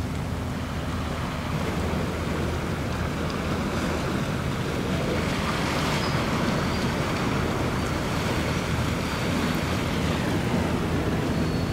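A passing ship's steady low engine drone carried over open water, mixed with a wash of wind and water noise. A few faint high chirps come in over the second half.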